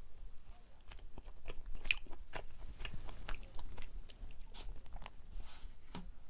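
Close-miked chewing of a soft mugwort steamed rice cake, with a run of short wet mouth clicks and smacks, the loudest about two seconds in.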